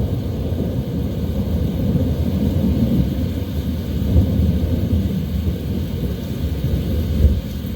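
Heavy rain and wind ambience dominated by a deep, steady rumble of wind, with a faint rain hiss above it.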